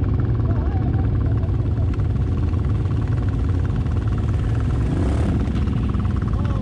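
Can-Am ATV engine running at low revs among several other idling ATV engines: a steady low rumble with a fast, even pulsing beat.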